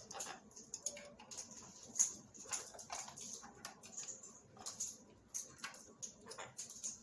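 Parrot foraging, its beak working at Nutri-Berries (seed balls with dried fruit): irregular small clicks, taps and crunches, several a second.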